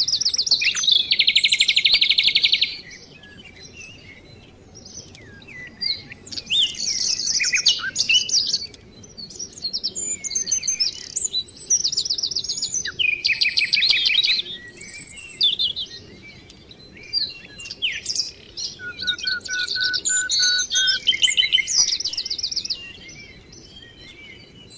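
Songbirds singing: bursts of rapid, high trills lasting a second or two, with scattered chirps between them and a run of evenly spaced lower notes in the later part.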